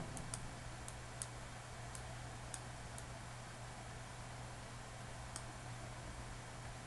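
Faint computer mouse clicks, about eight at irregular intervals and most of them in the first three seconds, over a steady low electrical hum.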